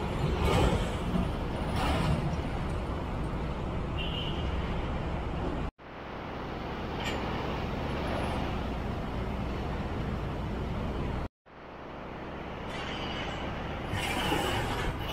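Road traffic passing: container trucks, a bus, cars and motorbikes go by with engine and tyre noise and a few louder swells as vehicles pass close. The sound cuts out abruptly twice, about six and eleven seconds in, and fades back in each time.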